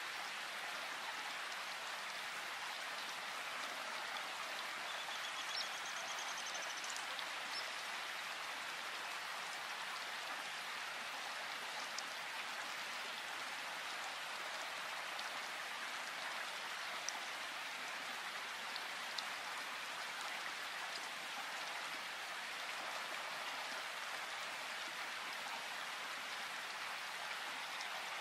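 Steady rain falling in a forest: an even hiss with a few louder single drops.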